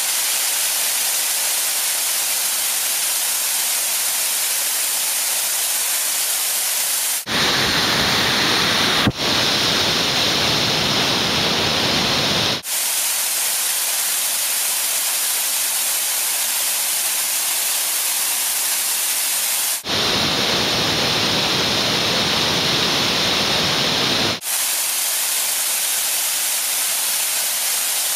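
Steady rush of white water from a woodland waterfall, a dense hiss. Twice it turns for a few seconds into a fuller, deeper roar, about a quarter of the way in and again about two-thirds of the way in.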